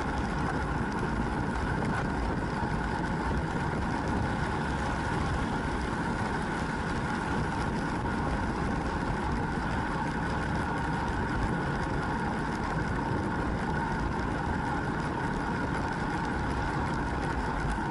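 Steady wind rush and road noise from a road bike riding at about 42–44 km/h, as picked up by a bike-mounted action camera, with a faint steady whine under the rush.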